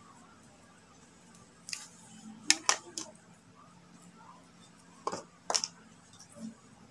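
Small hand tools and electrical wire being handled: a light click, then two pairs of sharp clicks or snips, the first pair in the middle and the second about five seconds in.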